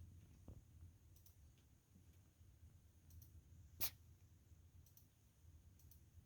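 Faint clicking of a cat's teeth as it nibbles at its fur after fleas, the clicks coming in quick pairs every second or two, with one sharper, louder click a little under four seconds in.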